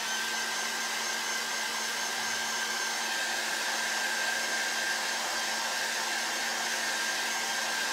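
Handheld hair dryer running steadily, blowing on freshly inked fabric to quick-dry it, with a steady whine over the rush of air.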